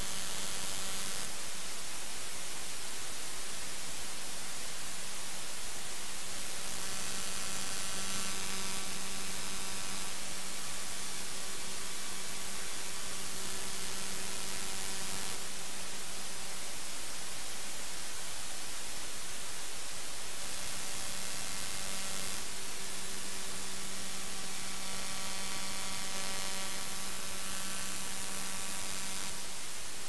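Raw I/Q data from the Sentinel-1 C-band synthetic aperture radar's receiver, played back as audio: a steady static hiss with a low hum and a stack of evenly spaced higher tones that fade in and out every several seconds. The uploader takes it for interference from ground-based Russian air defence radar picked up by the satellite.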